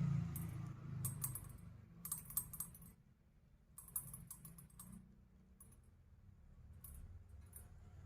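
Irregular clusters of small, crisp clicks, in quick runs with short gaps between them.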